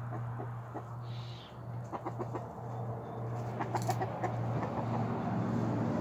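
Chickens, an Easter Egger rooster and a hen, clucking over a steady low hum, with a few short sharp clicks about four seconds in.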